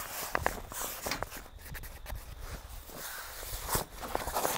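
Pop-up camper canvas being handled: the stiff fabric rustles and crackles in irregular bursts as it is pulled and smoothed into place over a bunk end, with a couple of brief squeaks about half a second and a second in.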